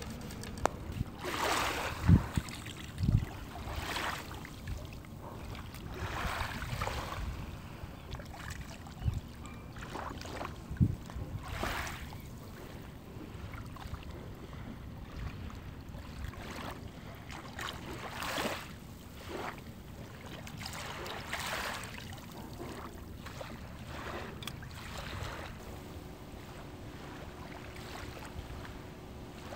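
Wind buffeting the microphone over lapping shallow sea water, with irregular splashing swishes every couple of seconds. A few dull knocks come in the first seconds.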